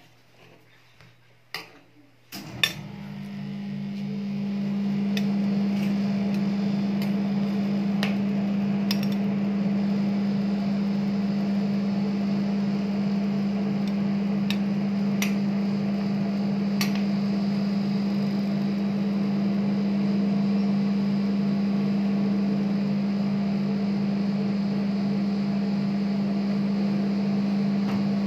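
Refrigeration unit of a rolled-ice-cream cold-plate machine starting up a couple of seconds in and then running with a steady low hum. Scattered sharp clicks of metal tongs against the steel plate and a ceramic saucer.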